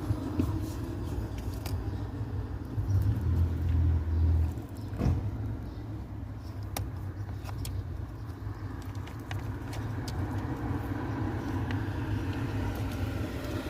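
Car engine running, a steady low rumble that swells briefly about three seconds in, with scattered light clicks.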